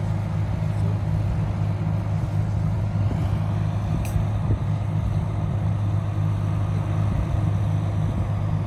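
Heavy diesel engine of an excavator or dump truck running at a steady speed, a deep even hum, with a single short click about four seconds in.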